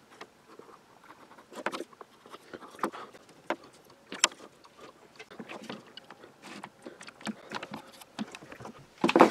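Small plywood parts being handled and set down on a cutting mat, giving scattered light wooden clicks and knocks, with a louder clatter near the end as the glued parts go into a corner clamp.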